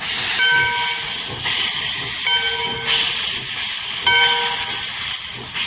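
Steady hissing water spray washing a muddy toy, with a whining tone that cuts in and out several times.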